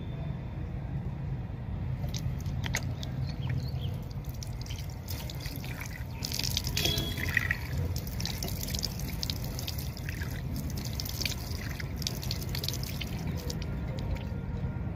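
Water running from an outdoor tap and splashing as cupped hands throw it onto the face, rinsing it off. The splashes start about two seconds in and stop shortly before the end.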